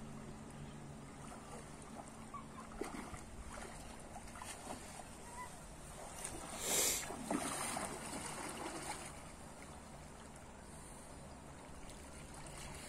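Shallow river water splashing as a cast net is hauled in and gathered up by men wading, with one louder splash about seven seconds in.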